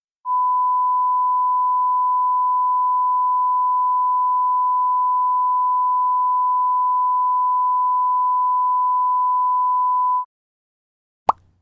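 A steady electronic beep: a single pure tone of about 1 kHz, the classic censor-bleep or test tone, held for about ten seconds and then cut off. About a second later comes one short pop.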